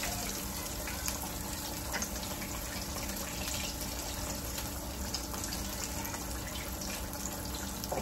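Breaded pork chops deep-frying in hot oil in an electric deep fryer: a steady bubbling sizzle with scattered small crackles.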